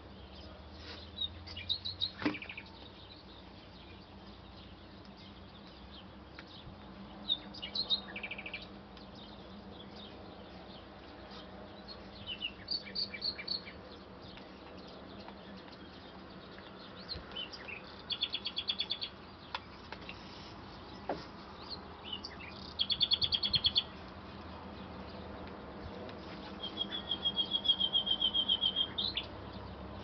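Small songbirds calling in short bursts of rapid high trills and chirps every few seconds, the longest and loudest trill near the end, over a steady low background hum.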